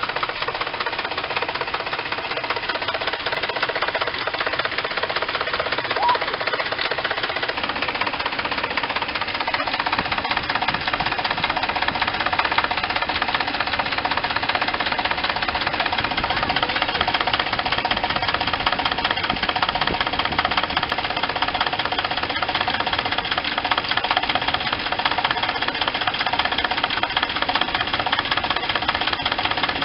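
2006 Cadillac STS engine running with a rapid, steady knocking from under the hood, a noise the owner has not yet traced; new spark plugs have not cured it.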